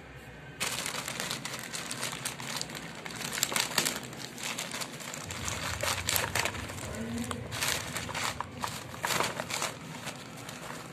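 Thin plastic bag crinkling and rustling as hands work a cardboard box out of it, starting about half a second in.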